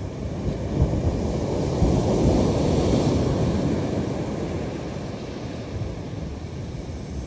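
Surf on the beach: a wave breaking and washing up the shore, swelling from about a second in and slowly fading, with wind on the microphone.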